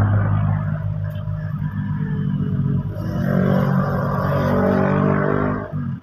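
Excavator's diesel engine running loudly and steadily, its pitch shifting slightly as it works; the sound dips sharply near the end.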